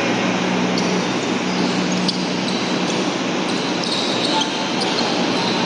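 Basketballs bouncing on a hardwood gym floor during warm-ups, over a steady low hum.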